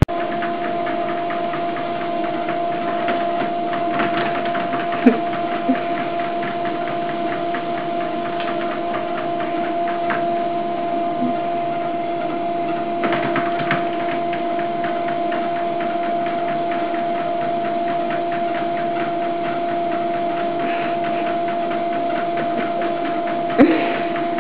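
Electric treadmill running at a steady speed: a constant motor hum with a steady two-note whine over a fine rattle of the moving belt, with a few light knocks about five seconds in and near the end.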